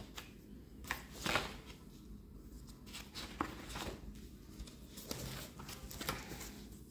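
Faint handling noises in a small room: scattered short rustles and light taps every second or so over a low steady hum.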